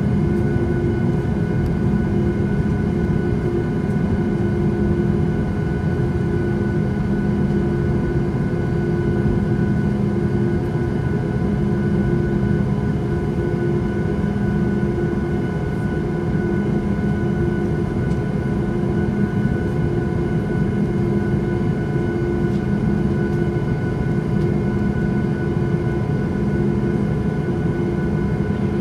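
Steady cabin drone inside a Boeing 737 MAX 8 under power: a rush of air with a few steady engine hums from its CFM LEAP-1B turbofans, unchanging throughout.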